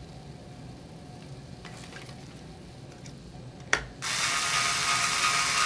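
Small handheld electric screwdriver starting with a click about four seconds in and then running steadily with a whirring whine as it drives a screw into the board's frame. Before it starts, only faint handling clicks.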